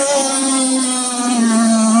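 Racing boat engine running at high revs, a steady high-pitched buzzing whine whose pitch dips slightly about one and a half seconds in.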